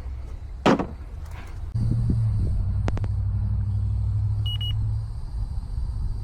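A low electric motor hum from the air-conditioning equipment comes on about two seconds in and eases off near five seconds. A thump comes near the start, and there are two sharp clicks and a short beep in the middle.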